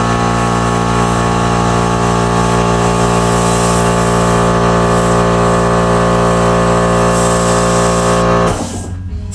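Small airbrush air compressor running with a steady hum and hiss, then switching off abruptly about eight and a half seconds in.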